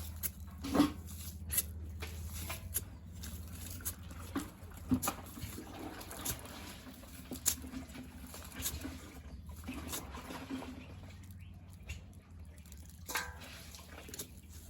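Digging in soil to unearth turmeric rhizomes: irregular knocks and scrapes, roughly one a second, over a low steady rumble.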